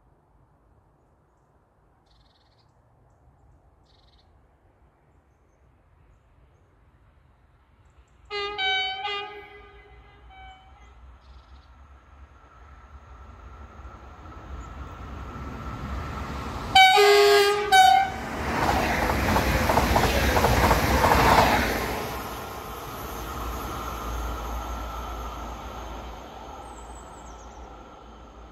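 Train horn sounding one blast as it approaches, then two short, louder blasts about 17 seconds in. The train then passes at speed with a loud rush that fades away.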